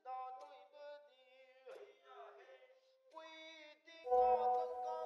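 Background music: a slow song, with a singing voice holding long notes. It swells louder, with a low note beneath, about four seconds in.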